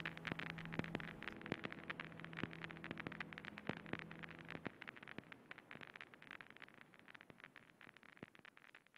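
Faint, rapid, irregular crackling and squelching of plastic-gloved hands massaging hair dye into wet hair. A few faint held music notes die away about halfway through.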